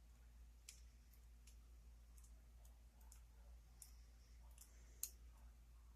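Faint, scattered small metallic clicks of tweezers working a driver pin and spring out of a lock's pin chamber, with one sharper click about five seconds in.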